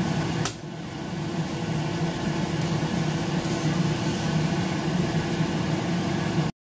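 Shrimp sizzling in a nonstick frying pan over a gas burner: a steady hiss over a low hum. There is a short click about half a second in, after which it is a little quieter.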